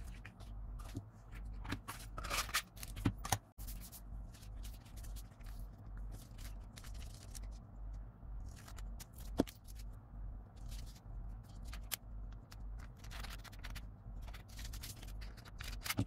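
Paper rustling and scraping on a desk, with scissors snipping through kraft paper, in short scattered bursts. A single sharp tap comes about nine seconds in, and a steady low hum runs underneath.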